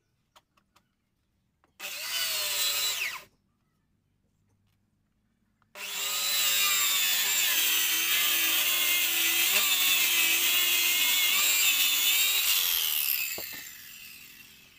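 Handheld electric circular saw: a short run of about a second and a half, then after a pause a steady run of about seven seconds as it rips along the edge of a wooden slab, winding down with falling pitch near the end.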